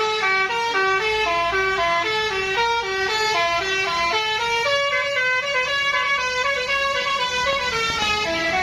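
Bus telolet horn, a multi-tone musical air horn, playing a loud melody of stepped notes that change about four times a second.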